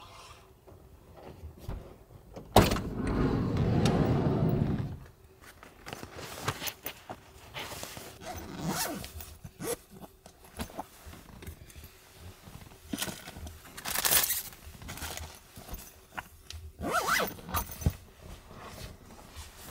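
Things being handled and put away inside the small van: scrapes, rustles and knocks, the loudest a scraping rush of about two seconds near the start, with more knocks and scrapes later on.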